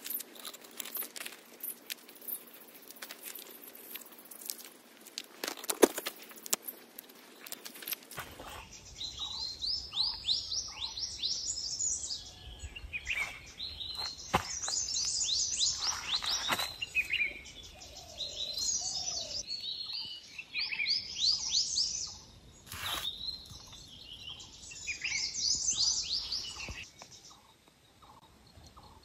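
Fresh leaves crackling and rustling as they are handled and folded, then birds chirping in repeated quick runs of high notes, with occasional sharp cracks and rustles of bush branches.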